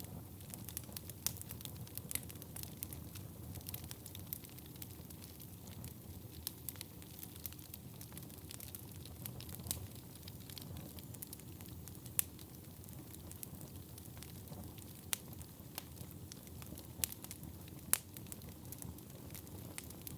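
Wood fire burning in a fireplace: a steady low hiss and rumble with frequent irregular sharp crackles and pops, a few louder snaps among them.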